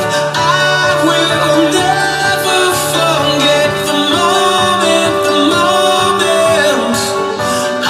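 Recorded song played back over loudspeakers: a voice singing a melody over guitar and backing instruments.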